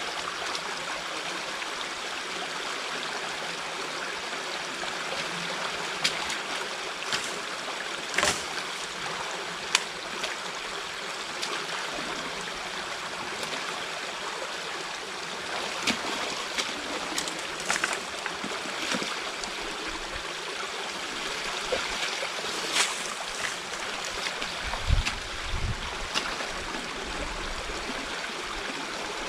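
Water running steadily through a beaver dam being pulled apart by hand, with scattered sharp clicks and knocks of sticks being handled and a few low thumps near the end.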